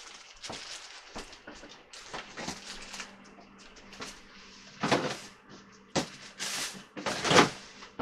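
Kitchen clatter: a run of light knocks and bumps as things are handled, with several louder thumps in the second half, the loudest near the end. A faint steady hum runs underneath from a few seconds in.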